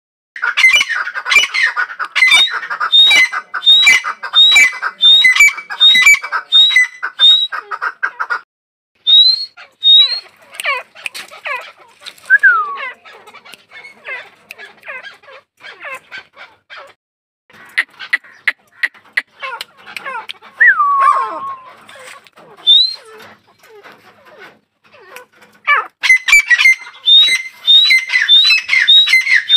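Female grey francolin calling: a fast run of repeated shrill notes, about one and a half a second, each ending in a short rising whistle. About a third of the way in the run breaks off into scattered single calls, and the rhythmic series starts again near the end.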